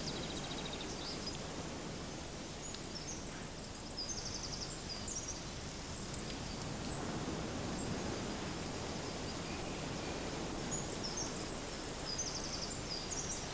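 Outdoor ambience: a steady hiss with many scattered short, high-pitched chirps and brief rapid trills.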